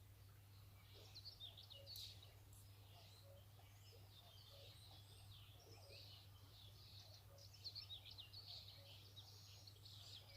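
Faint birdsong: many small birds chirping and trilling together, with one soft note repeating regularly under a steady low hum.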